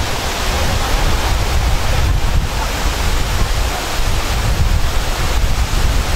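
Water pouring over a low concrete weir below a waterfall: a steady rush with a deep rumble underneath.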